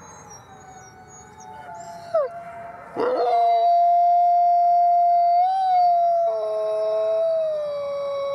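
A Canadian/Rocky Mountain gray wolf howling close up: one long, nearly level howl that starts abruptly about three seconds in and carries on to the end. Fainter howls of other wolves overlap in the background.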